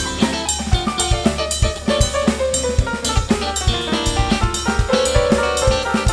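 Music with a driving drum-kit beat, kick and snare hitting about three times a second, under a melody that slides down in pitch.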